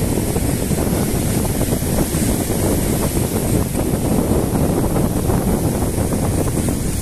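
Ocean surf breaking and washing up a shallow beach, a steady rush of water, with wind buffeting the microphone.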